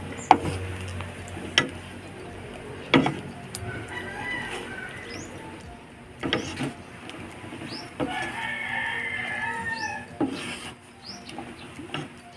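Wooden spatula knocking against a frying pan several times as chicken wings are turned in sauce, with a rooster crowing and chickens clucking in the background, and small birds chirping.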